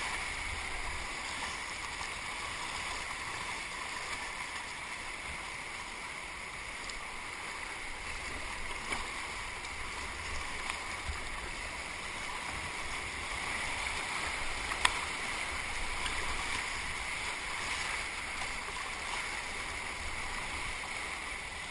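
Steady rush of flooded whitewater rapids heard from a kayak, with faint paddle-stroke splashes and one sharp knock about fifteen seconds in.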